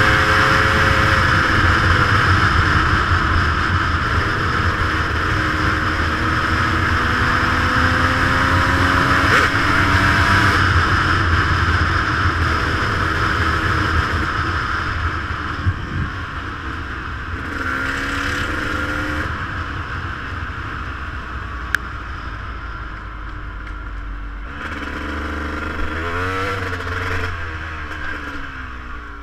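Off-road motorcycle engine running at speed, its note rising and falling with throttle changes, under a heavy rush of wind noise. About 25 seconds in it slows to low-speed running with a wavering engine note.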